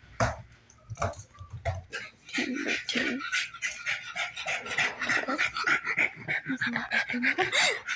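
Dog panting quickly in short, rapid breaths, starting a couple of seconds in after a quieter start with a few scattered clicks.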